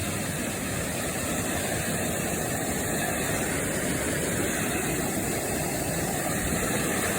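Waterfall and cascades rushing steadily, an even, unbroken sound of falling water.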